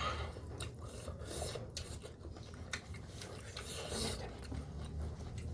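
Close-up eating sounds: chewing food with many small crackly clicks and rasps, over a steady low hum.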